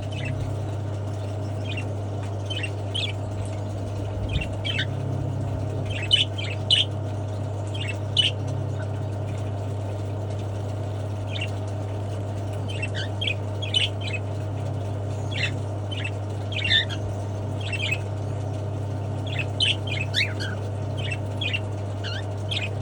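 Cockatiels in an aviary giving short, scattered chirps and squawks, in clusters every second or two, over a steady low hum.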